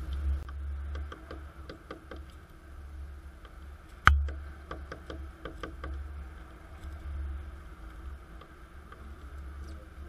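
Great tits at a sunflower-seed feeder: scattered light clicks and taps of beaks and feet on the seeds and the feeder tray, with one sharp knock about four seconds in. A steady low rumble runs beneath.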